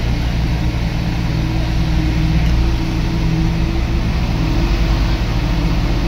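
Komatsu D21P bulldozer's diesel engine running steadily, a loud, even low drone.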